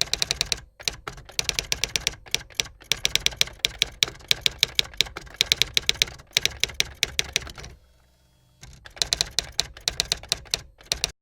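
Rapid typing clicks, many strokes a second in quick runs, with a short pause about eight seconds in.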